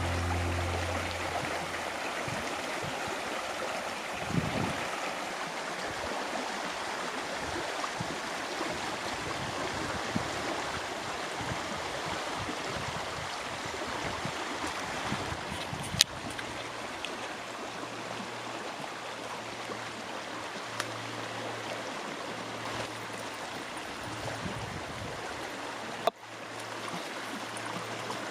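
Steady rush of running water, like a stream. There is a sharp click about sixteen seconds in, and a brief break near the end.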